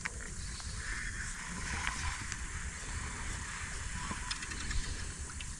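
Fishing reel being wound in steadily, a soft mechanical whirr of its gears, with low rumble from wind on the microphone.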